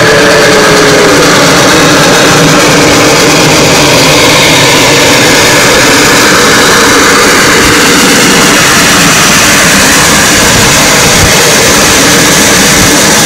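Steam locomotive working close by: a loud, steady roar of exhaust and steam, with the end of a steam whistle blast fading out about a second in.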